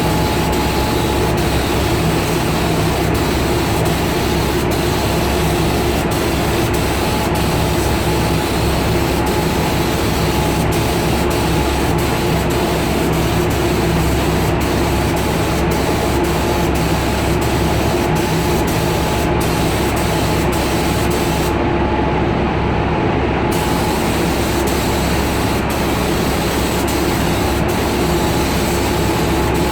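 Compressed-air paint spray gun hissing steadily while spraying car paint, over a steady machine hum. The high part of the hiss drops out briefly about three-quarters of the way through.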